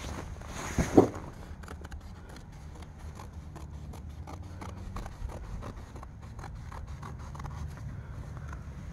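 Scissors snipping through heavy canvas tent fabric in a run of short, crisp cuts. Two louder thumps come about a second in.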